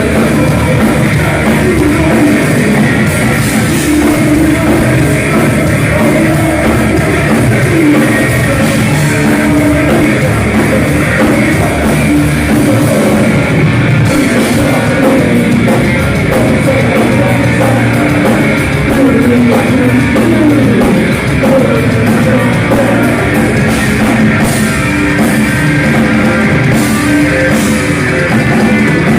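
Heavy metal band playing live: distorted electric guitars and a drum kit, loud and continuous.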